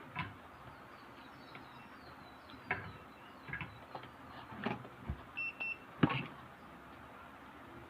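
Scattered light clicks and taps of small tools and phone parts being handled during a mobile phone microphone repair, the sharpest about three-quarters of the way in. One short electronic beep sounds a little past the middle.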